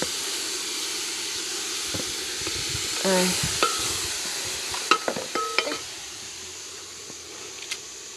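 Sukuma wiki (collard greens) sizzling in a sufuria (cooking pot) with a steady hiss, while a spoon stirs them, knocking and scraping against the pot several times between about three and six seconds in.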